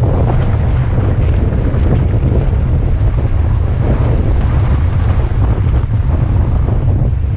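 Heavy wind buffeting on the microphone of a camera riding along on a downhill mountain-bike run: a loud, steady low rumble with scattered knocks and rattles from the bike over rough ground.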